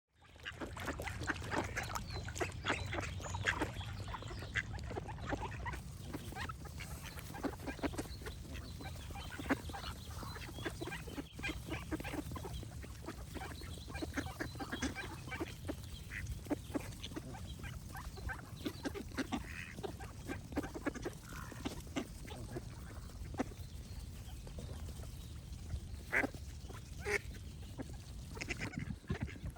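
A group of ducks quacking, many short calls overlapping nearly without pause, over a steady low rumble.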